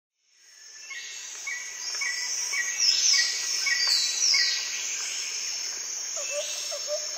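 Nature ambience of birds calling over a steady high insect drone, fading in from silence over the first second. A short chirp repeats about twice a second, and a lower call starts repeating quickly near the end.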